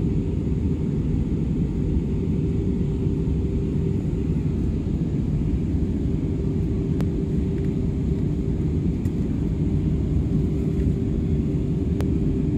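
Steady cabin noise inside an Airbus A320neo airliner during its descent: a constant low rumble of engines and airflow with a steady hum over it.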